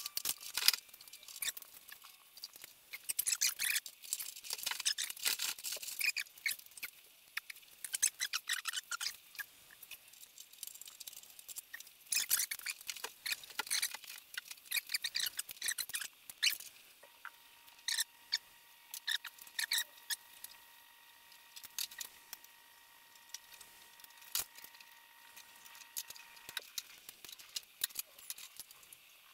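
Metal clinking, scraping and rattling as tools and exhaust pipework are worked loose under a VW bus engine: bursts of quick sharp clicks with pauses between, thinning out after about halfway.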